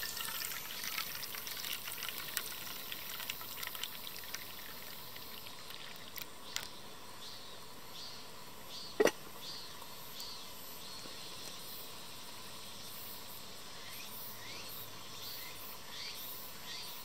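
Water poured from a kettle into a stainless steel sierra cup, splashing and trickling for about the first five seconds. Afterwards only a quiet outdoor background with short high chirps remains, broken by one sharp knock about nine seconds in.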